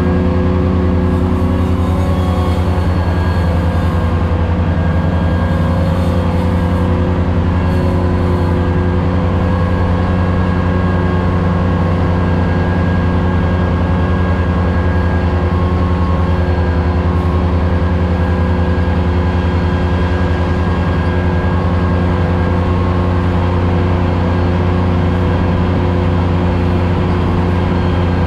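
Ventrac 4500Z compact tractor running steadily under load with its 72-inch finish mower deck cutting tall grass, heard from inside the cab: an even, unchanging engine hum.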